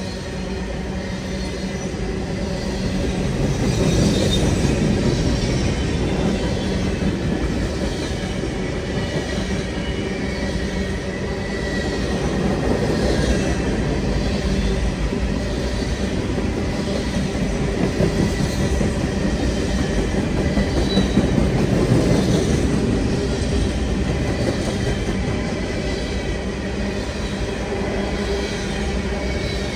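Freight cars of a long CN intermodal and grain train rolling steadily past, their wheels clattering over the rail joints in a repeating beat about once a second over a low rumble, with a faint wheel squeal.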